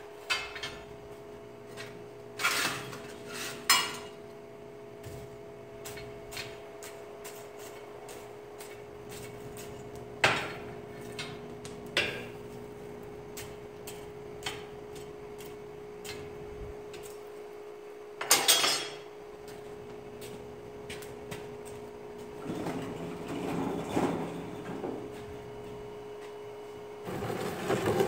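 Square steel bars clanking against each other and the forge as they are shifted about in the fire: a handful of sharp metallic clanks, several seconds apart, over a steady hum. Near the end, louder rustling and handling noise.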